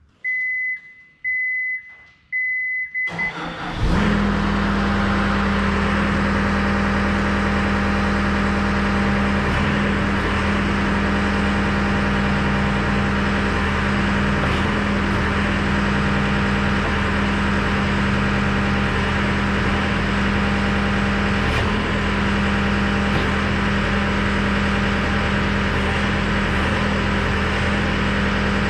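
A warning beeper sounds in short beeps, then the diesel engine of a John Deere compact track loader cranks and starts about three seconds in and runs steadily at idle.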